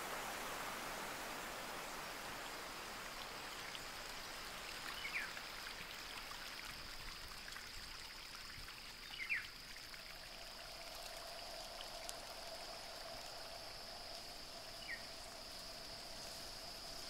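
Forest stream running over rocks, strongest at first and thinning out. A steady high insect drone sets in after a couple of seconds, and a lower steady tone joins about ten seconds in. A few short, quick descending bird chirps come at intervals.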